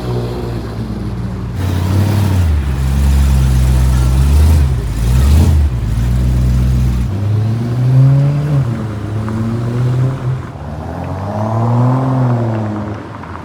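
Supercar engine and exhaust running loud and deep, then blipped so the note rises and falls twice in the second half.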